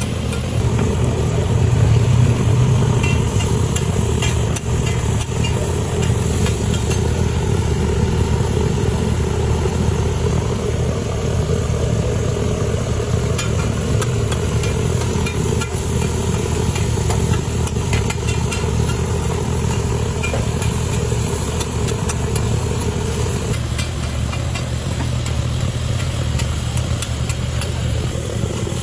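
A loud, steady low mechanical hum, with scattered small crackles of liver frying on a tawa; part of the hum drops away about 23 seconds in.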